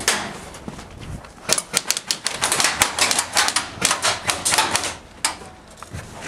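Airsoft guns firing a rapid, irregular string of sharp clacking shots, thickest from about a second and a half in until just after five seconds, then thinning out.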